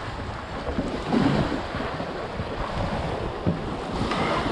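Small waves lapping onto a sandy shore, with wind buffeting the microphone.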